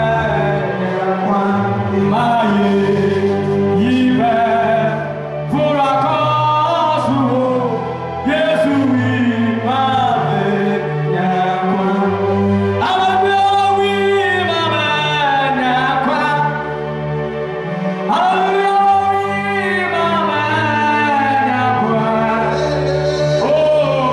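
A man singing a gospel worship song into a microphone, his voice gliding and bending through long held phrases over sustained electronic keyboard chords and bass notes.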